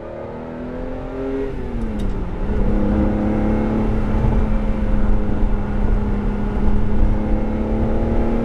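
A 1994 Ferrari 512TR's 5-litre flat-12 engine heard from inside the cabin, revving up in a low gear. Its pitch drops sharply about two seconds in at a gear change, then it pulls steadily, growing louder as the revs climb slowly.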